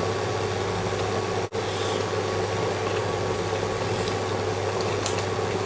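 Steady mechanical hum with an even hiss, broken once by a short gap about one and a half seconds in.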